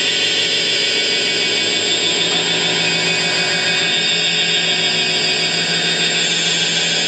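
Electronic noise drone played live on a tabletop electronics setup: a loud, steady wall of hiss and buzz with many held tones layered through it, its low hum fading about six seconds in.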